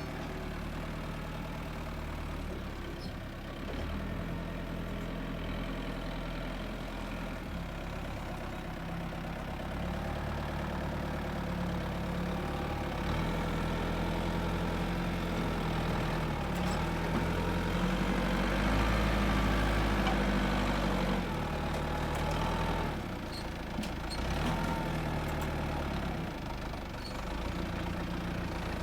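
Engine of heavy construction machinery running with a steady low drone. It picks up in speed and load partway through, then settles back, with a few faint clanks near the end.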